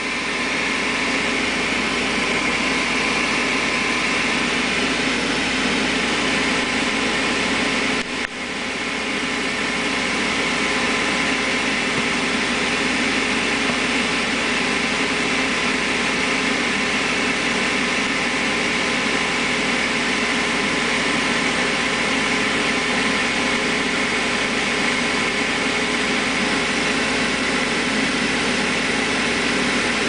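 Gas furnace's draft inducer fan running with a steady whir while the hot-surface igniter heats up before burner ignition, with a brief dip about eight seconds in.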